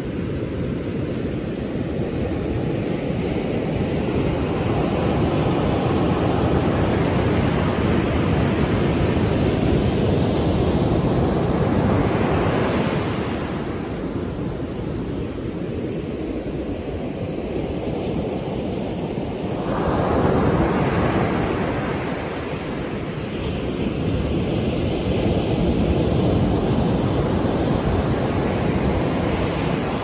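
Ocean surf breaking and washing up a sandy beach: a steady rushing wash that swells and ebbs with each set of waves, with a sudden surge about two-thirds of the way through.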